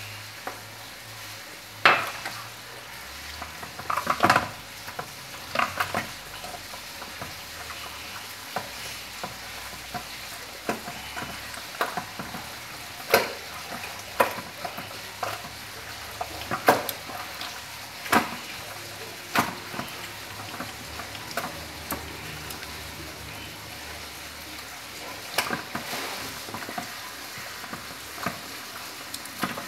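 Homemade borax slime being worked and squished, making irregular sticky pops and clicks over a steady fine crackle.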